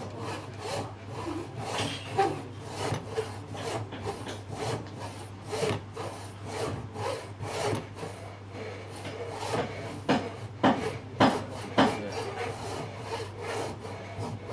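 Traditional wooden frame saw cutting through a small piece of wood held in a vise, in quick back-and-forth strokes at about two to three a second. A few strokes are sharper and louder about ten seconds in.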